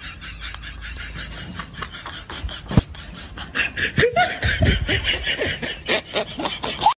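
A person laughing in quick repeated pulses, with short rises and falls in pitch, louder from about halfway through.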